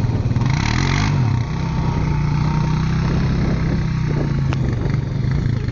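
Quad bike engine running, its revs rising and falling briefly about half a second in, then holding steady.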